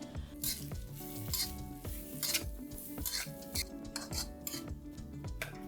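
Pounded Thai herb and chili curry paste sizzling in hot oil in a pan, stirred with a utensil scraping the pan in repeated strokes.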